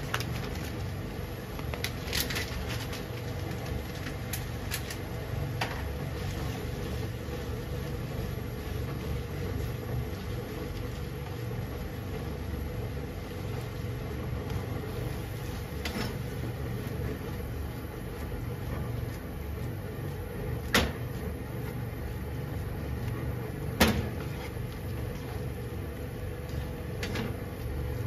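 Pasta with cabbage and bacon cooking in a hot frying pan over a steady low kitchen hum, with a few sharp clicks as tongs toss the noodles and knock against the pan, two louder ones in the last third.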